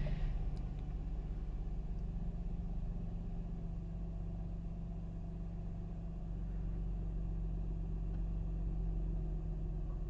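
Mercedes SLK 350 R171's 3.5-litre V6 idling steadily at about 1,000 rpm during its warm-up, heard from inside the cabin. The idle is smooth and even, with no misfire, now that the faulty ignition coil has been replaced.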